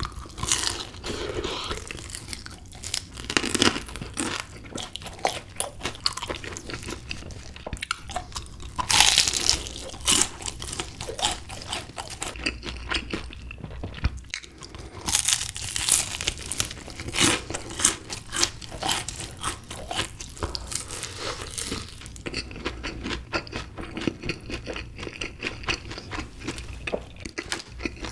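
Crispy honey-glazed fried chicken being bitten and chewed close to the microphone: continuous crackling crunches of the fried coating, loudest on big bites about a third of the way in and again just past halfway.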